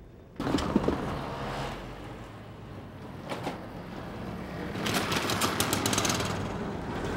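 Small motorcycle engine running with a rapid ticking beat as the motorcycle rides over the level crossing, loudest for about a second around five seconds in as it passes close.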